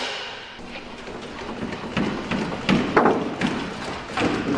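Irregular metallic knocks and clunks from the aircraft wing and its fittings as it is worked against its attachments, heaviest about two to three and a half seconds in and again near the end.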